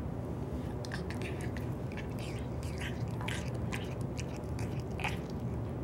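A cat's mouth making small, irregular wet clicks and smacks as it works at a pill held in its mouth with its jaw held shut. A steady low hum runs underneath.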